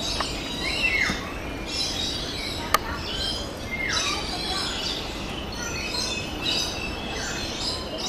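Birds chirping and calling, with several short calls that slide downward in pitch and a mix of high twittering. A single sharp click about three seconds in.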